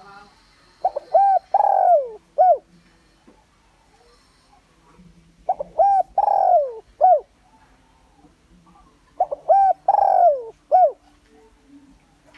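Spotted dove cooing: three matching song phrases about four seconds apart, each a few short coos around one longer, louder drawn-out coo. This is a decoy dove's call, used to lure rival males in to fight.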